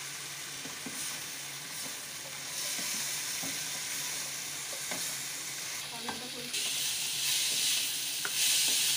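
Chicken strips sizzling in a non-stick wok as they are stirred and tossed with a spatula, with light clicks of the spatula against the pan. The sizzle grows louder about two and a half seconds in and again about six and a half seconds in.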